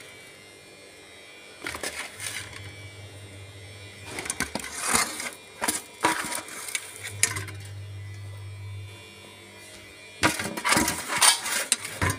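Steel plate and spoon clattering and scraping against an aluminium pressure cooker as mashed boiled potatoes are tipped in, in several separate bursts, the loudest near the end. A low hum runs underneath and drops out at times.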